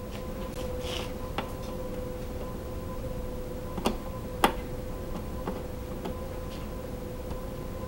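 Light clicks and taps of screws and hand tools being handled during scooter panel removal, with two sharper clicks about four seconds in, over a steady faint hum.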